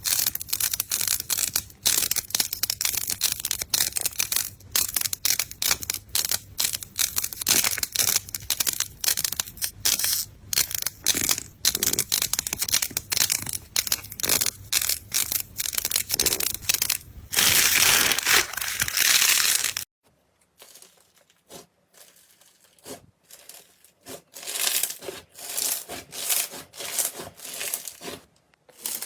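Slime being squeezed and pressed by hand, giving a dense run of crackling and popping with a smoother stretch near the twenty-second mark. Then the sound drops off suddenly, and quieter, sparser crackles build up again toward the end.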